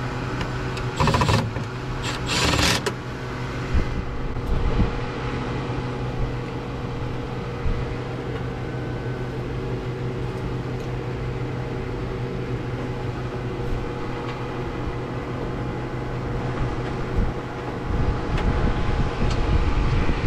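A steady mechanical hum with several constant tones throughout, under two short whirring bursts of a cordless drill/driver about one and two and a half seconds in, driving screws into the heater's sheet-metal side panel.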